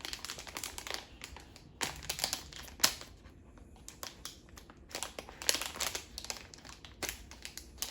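Packaging crinkling and crackling as it is handled and opened, in several bursts.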